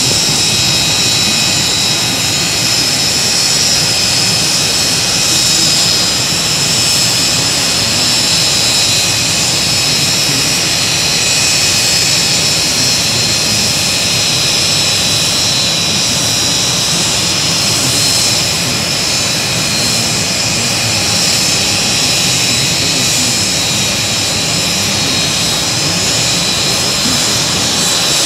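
Aircraft turbine engine running steadily: a high, unchanging whine over a loud, even rush of noise.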